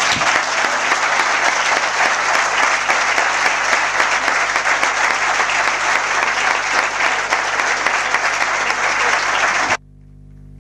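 Audience applauding in a steady, dense round of clapping that cuts off suddenly near the end.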